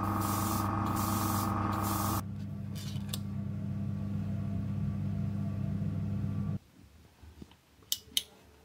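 Airbrush hissing in short bursts over a steady motor hum. The spraying stops about two seconds in; the hum runs on and cuts off suddenly about two-thirds of the way through, and two sharp clicks follow near the end.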